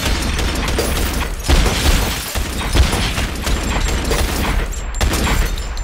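Loud, steady rumble and rattle of a subway train car in motion, with several sharp bangs standing out above it.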